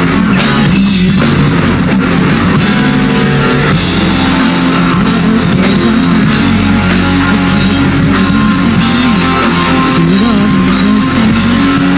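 Rock band playing live: distorted electric guitars, bass and drum kit in an instrumental stretch between sung lines.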